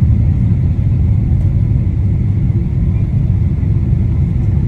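Steady low rumble with no clear pitch and no distinct events.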